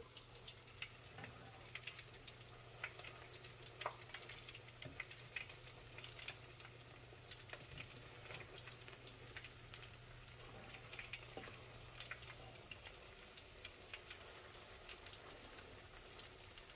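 Onion bhajis deep-frying in a pan of hot oil: faint, steady sizzling with many small scattered crackles.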